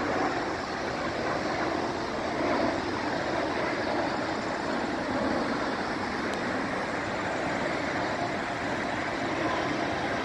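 Steady road traffic noise at rush hour, an even wash with no single vehicle standing out.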